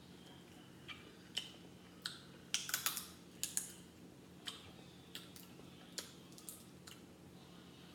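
Crab leg shells cracking and snapping as they are broken and picked apart by hand: scattered sharp clicks, bunched most thickly about two and a half to three seconds in.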